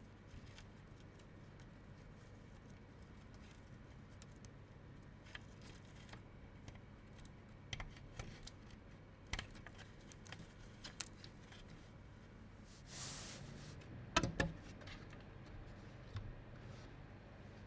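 Scattered small clicks and taps of PC parts being handled and fitted, with a short rustle about thirteen seconds in and two sharper clicks just after.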